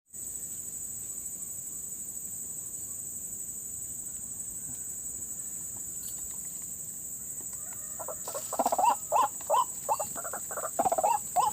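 Steady high-pitched insect drone, then from about eight seconds in a run of loud, harsh, repeated calls of a white-breasted waterhen (ruak-ruak).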